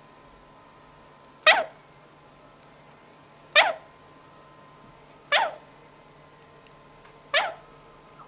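African grey parrot giving four short, sharp calls about two seconds apart, each a quick sweep falling from high to low pitch.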